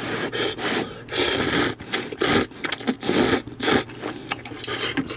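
A person slurping ramen noodles in a series of short, noisy, uneven bursts.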